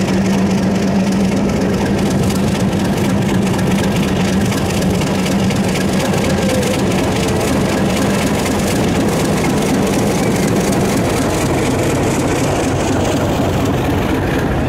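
Diesel locomotive engine running steadily and loud, with a low hum that fades about eleven seconds in.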